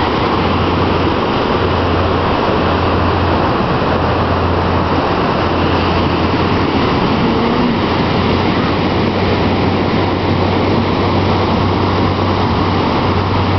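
Steady rush of ocean surf breaking and washing up the beach, with a low rumble on the microphone that comes and goes.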